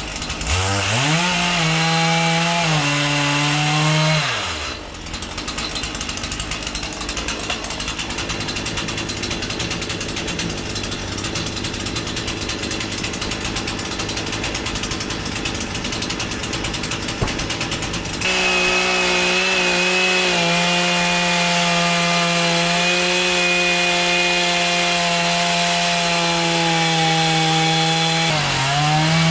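Two-stroke chainsaw revving and cutting wood. Its pitch rises and falls for the first few seconds and dips briefly around 5 s, then it runs with a steady high pitch from about 18 s, dropping off near the end.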